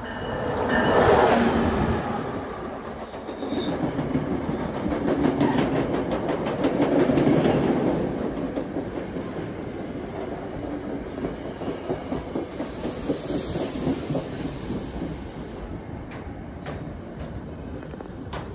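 NJ Transit PL42AC diesel-electric locomotive passing close by, followed by Comet passenger coaches rolling past with wheels clacking over the rail joints. The train slows into the station, and the sound settles to a quieter rumble with a thin high squeal about fifteen seconds in.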